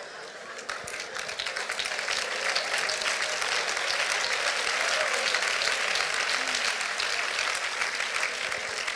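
Church congregation applauding, the clapping building over the first two seconds and then holding steady.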